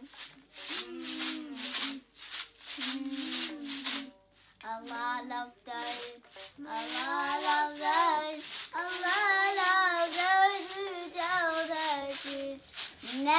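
A child singing while shaking a homemade shaker, a plastic bottle filled with rice, the rice rattling in a steady rhythm. The singing grows fuller and louder about halfway through.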